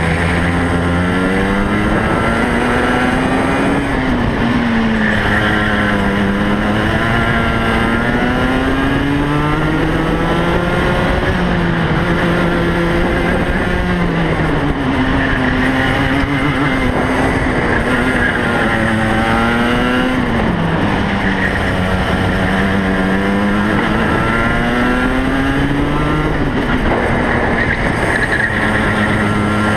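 DMax racing kart's engine heard from on board, climbing in pitch as the kart accelerates and dropping sharply as it lifts off, about five times over as it laps the circuit.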